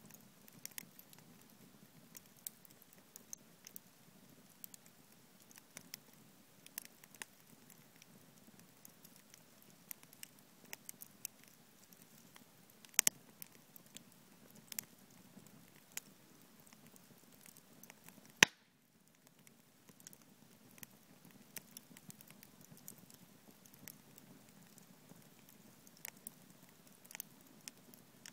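Wood fire burning in a fire pit, crackling with scattered small snaps and pops. A louder pop comes about halfway through, and the loudest comes about two-thirds of the way in.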